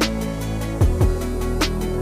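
Background music with a steady electronic beat: kick drum and hi-hat over held synth chords.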